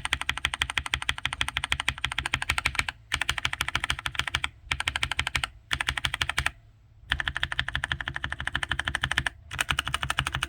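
Lubed Akko Rose Red linear mechanical keyboard switches under keycaps, pressed in fast repeated strokes that give a dense run of clacks, with a few short pauses.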